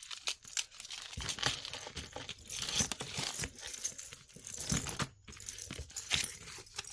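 Packaging crinkling and rustling in irregular crackles as items are handled and pulled out of a jewelry lot.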